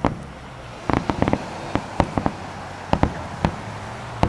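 Starmine fireworks barrage: a rapid, irregular string of about a dozen sharp bangs, some in quick clusters of two or three, as shells are launched and burst.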